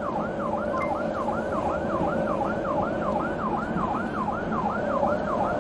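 Police car siren on yelp: a fast rising-and-falling wail, about four cycles a second, over road noise.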